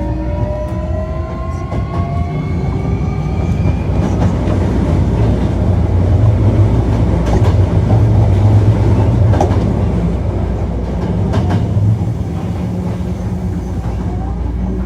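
Hankyu 1300 series train with a Toyo IGBT VVVF inverter pulling away: the inverter whine rises in several tones for about four seconds and then fades out. Under it the motors and wheels rumble steadily, with clicks over rail joints as the train runs on.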